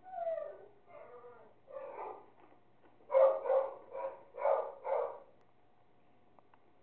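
Animal calling with pitched, voice-like calls: a falling call at the start, two softer calls, then a run of five short loud calls from about three seconds in, roughly two a second, stopping after about five seconds.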